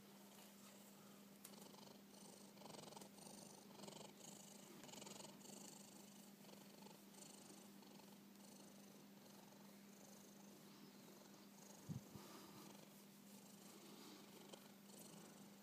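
Sleeping cat snoring faintly, soft breathy snores repeating in an even rhythm over a low steady hum. A soft thump comes about twelve seconds in.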